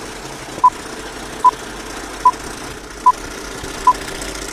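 Film-leader countdown sound effect: five short, identical beeps, one about every 0.8 seconds, one per number, over a steady hiss.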